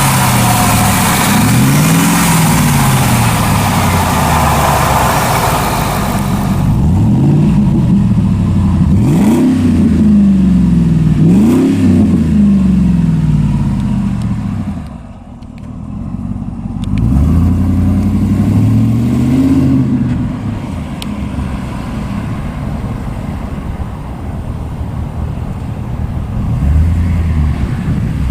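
Supercharged 5.4-litre V8 of a 2001 Ford F150 SVT Lightning with an upgraded exhaust, revved up and let back down again and again, its pitch climbing and falling in a series of rises. A loud hiss runs under it and stops about six seconds in.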